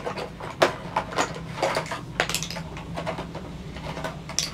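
Makeup products and plastic compacts clicking and clattering against each other and the tabletop as they are picked up and put down, a string of irregular light knocks.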